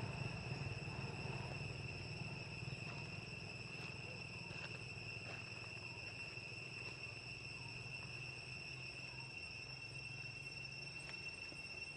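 Insects making a steady high-pitched drone, with a low rumble underneath that eases off over the first few seconds.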